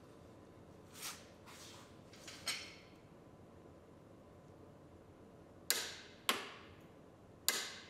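Click-type torque wrench on a drive axle nut, giving three sharp clicks in the second half, the signal that the set torque has been reached. A few softer knocks come in the first couple of seconds.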